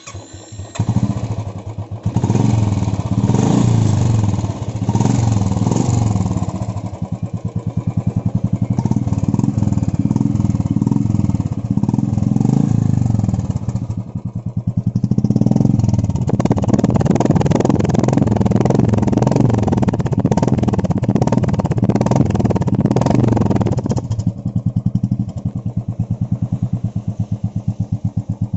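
Royal Enfield Classic 350 single-cylinder engine running through its stock exhaust, rising and falling in speed, then settling to a steady, even-beat idle near the end.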